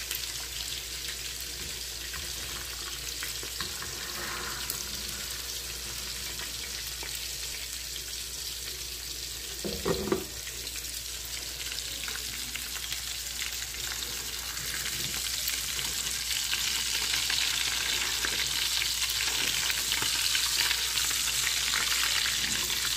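Chicken fat rendering in a frying pan: steady sizzling and crackling as the fat melts, growing louder over the second half. A brief knock comes about ten seconds in.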